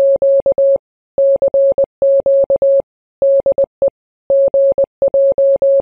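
Morse code: a single steady beep keyed on and off in dots and dashes, grouped into letters with short pauses between them, as sent by an amateur radio CW transmission.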